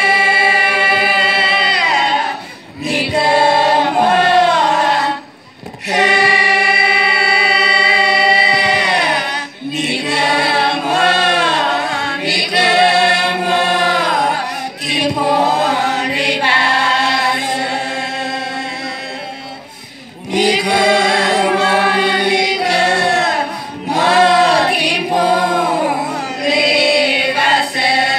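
A group of women singing a traditional song together without accompaniment. They hold long notes in phrases a few seconds long, with short breaks for breath, the clearest about five seconds in and again about twenty seconds in.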